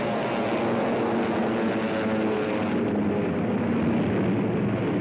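Bomber aircraft engines droning steadily in flight.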